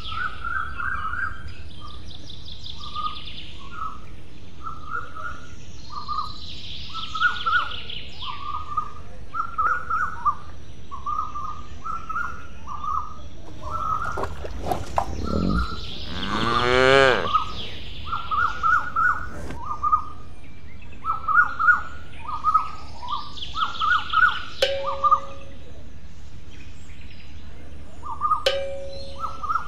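Birds chirping in short repeated calls, with a higher trill now and then. About halfway through, a cow moos once. Two short sharp clicks come near the end.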